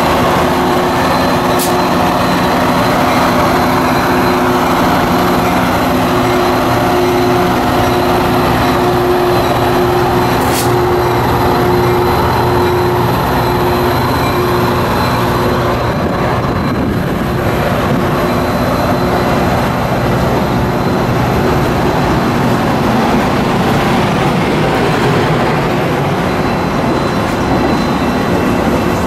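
Metra diesel locomotive's engine running loudly at close range as the commuter train starts to move. From about halfway through, the steady engine drone gives way to the rumble of the stainless double-deck passenger cars rolling past on the rails.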